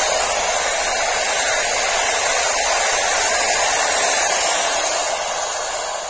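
Passenger coaches of a train running past close at speed: a steady rushing noise of wheels on rail that fades near the end as the last coach goes by.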